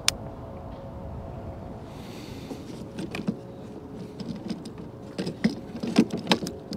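A sharp click, then a run of irregular knocks and clatters, loudest near the end, as fishing gear is handled and moved about on a boat's deck. A steady low hum from the boat's motor runs underneath.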